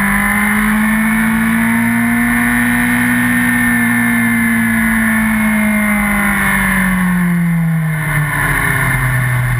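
Yamaha R1's inline-four engine running hard, heard from a camera mounted on the bike. Its pitch climbs gently for the first few seconds, eases off, then drops about eight seconds in.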